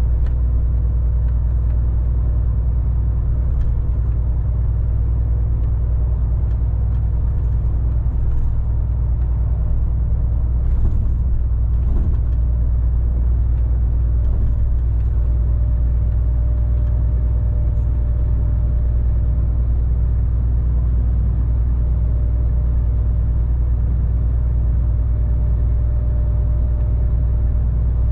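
MAN TGX 18.460 lorry's 12.4-litre straight-six diesel running steadily on the road: an even, low drone mixed with road noise. A couple of faint knocks come about eleven and twelve seconds in.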